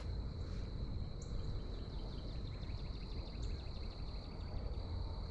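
Evening insect chorus with a steady high trill, a distant eastern whip-poor-will calling faintly, and a low steady rumble underneath.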